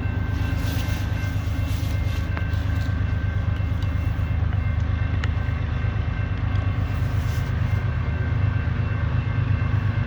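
Diesel freight locomotives running with a steady deep rumble, growing a little louder toward the end.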